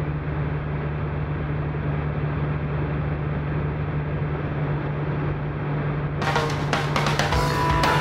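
Steady car cabin noise while driving on a wet road: tyre and engine noise with a low hum. About six seconds in, post-punk music with drums starts over it.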